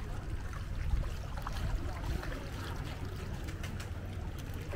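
River water lapping and small splashes from a crowd of fish at the surface, under a steady low rumble of wind on the microphone.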